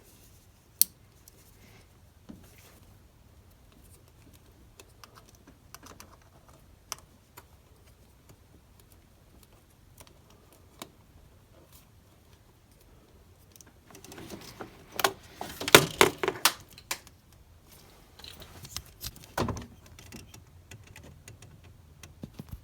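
Light clicks and clinks of small parts and tools being handled while a coolant temperature sensor and its retaining clip are fitted. The clicks are scattered, with a busier run of clattering about two-thirds in and another shortly after.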